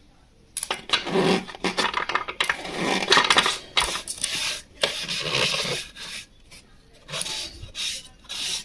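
Irregular scrubbing and wiping strokes of a cleaning cloth or foam against the inside of an industrial sewing machine's oil pan, with short pauses between strokes.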